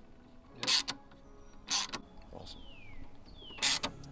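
Hand ratchet driving the Torx screws of an aftermarket intake cover, clicking in three short bursts, with two faint falling squeaks in between.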